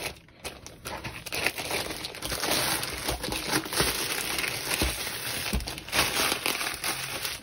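Thin clear plastic bag crinkling as a rolled diamond painting canvas is slid out of it and the bag is pulled away.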